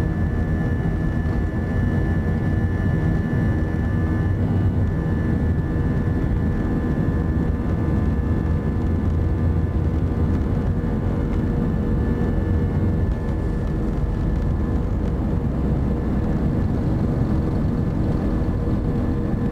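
Airbus A320-200's jet engines at takeoff thrust heard inside the cabin during the takeoff roll: a steady, loud, deep rumble with a high steady whine that eases somewhat after about four seconds.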